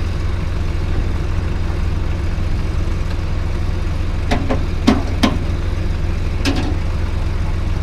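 Caterpillar D3C bulldozer's diesel engine running steadily, heard from inside the operator's cab, with four short sharp knocks in the second half.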